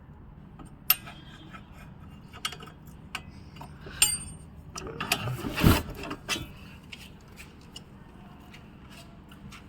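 Hand tools undoing the front suspension of a Maruti Baleno: ratchet clicking and sharp metal clicks and knocks, busiest a little past the middle, over a steady low hum.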